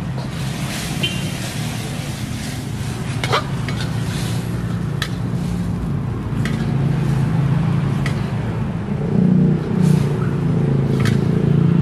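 Metal spatula clinking and scraping against a steel wok as wet fried noodles are stirred, with several sharp clinks, over sizzling and a steady low hum.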